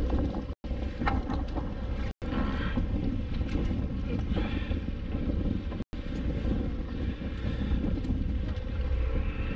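Steady low rumble of wind on the microphone aboard a sportfishing boat at sea. It cuts out to silence briefly three times.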